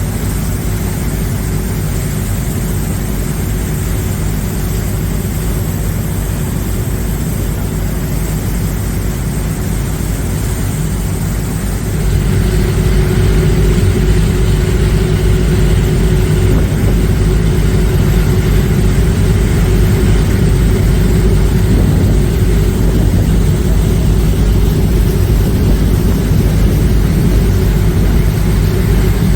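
Tour catamaran's engines running steadily, heard on board: a loud low drone with a steady hum, growing louder about twelve seconds in.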